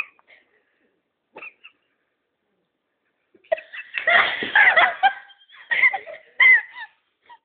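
Young people laughing hard together: a burst of high-pitched giggling starts about three and a half seconds in and lasts about three seconds, loudest near its start.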